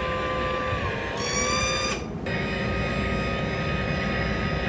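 Boat engine running through a newly fitted Yanmar ZD34 stern drive, giving a steady mechanical whine with several held tones. About a second in the pitch dips and climbs back, drops out briefly near two seconds, then settles steady again.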